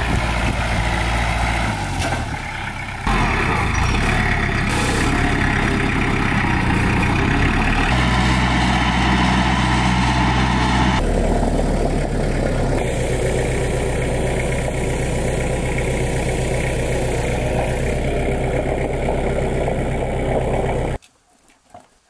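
Tractor engine running steadily across several spliced shots, the sound changing abruptly at each cut, about 3 and 11 seconds in. It cuts off about a second before the end.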